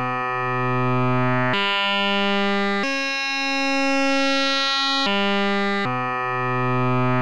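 Synthesized buzzy tone from polygon vertex rotation synthesis: a cosine-interpolated wavetable shaped by the vertices of a rotating 3D wireframe mesh, its timbre wavering gently as the shape turns. The base-frequency slider being dragged makes the pitch step up twice, then back down twice to where it began.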